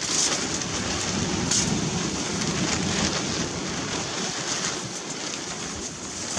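Steady rushing outdoor noise, most likely wind on the microphone, with faint small handling sounds close by as fingers work a sweet onto a fishing hook.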